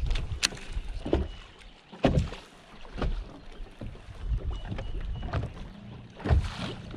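Small waves lapping and slapping against a boat's hull, with irregular short knocks about a second apart over a low, steady wash of water and wind.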